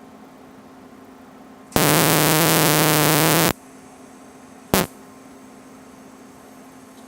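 TIG welding arc on stainless steel: a loud buzzing arc for about two seconds that cuts off abruptly, then a second brief burst a second later, over the steady hum of the welder. The short, broken arcs match the welder's trouble starting and holding the arc, with the tungsten tip getting stuck against the metal.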